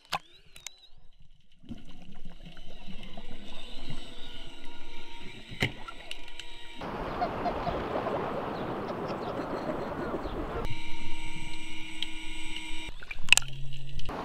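The brushless motor and propeller of a 3D-printed torpedo whine steadily, heard through water. For a few seconds in the middle the whine gives way to a rush of churning water and bubbles. A couple of sharp knocks come near the start and near the end.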